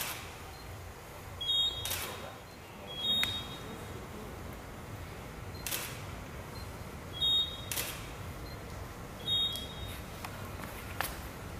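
A photographer's camera taking a series of shots, each a short high beep followed by a sharp shutter click, four or five times at irregular intervals.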